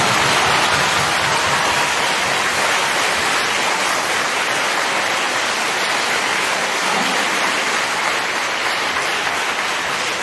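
Audience applauding steadily; the clapping eases slightly toward the end.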